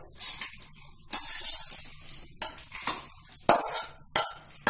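Roasted chana dal and dried red chillies being poured from a steel kadai into a stainless steel mixer-grinder jar: the dry lentils rattle and hiss against the steel in several pours, with clinks of pan on jar.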